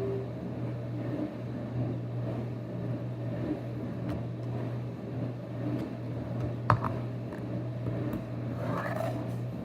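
Steady low machine hum, with a single sharp click about two-thirds of the way through.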